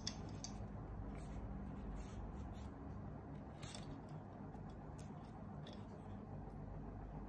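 Faint, scattered small clicks and handling noises of jumper-wire plugs and a small sensor circuit board turned in the fingers, over a steady low hum.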